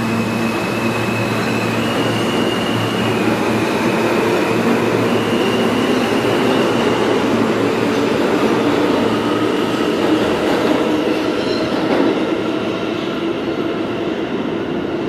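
R160B subway train accelerating away from a station platform: its electric traction motors whine in steady tones that step up and down in pitch over the rumble of wheels on the rails. The rumble eases slightly near the end as the train draws away.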